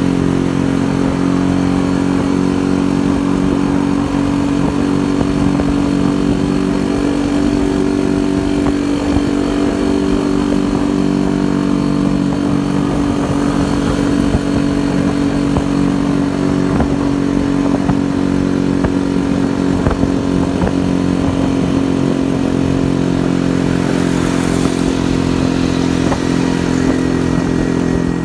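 Yezdi motorcycle engine running at a steady, even pitch while cruising, heard from the rider's seat.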